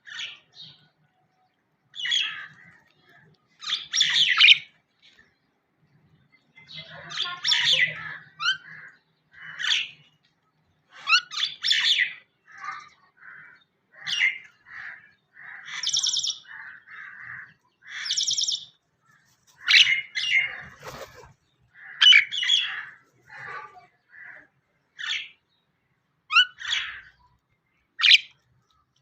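Birds chirping and squawking in short, shrill bursts, one every second or two.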